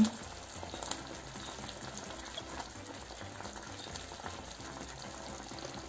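Sauce of vinegar, tomato and soy sauce, sugar and honey over garlic and oil, sizzling and bubbling steadily in a hot frying pan: a quiet, even hiss.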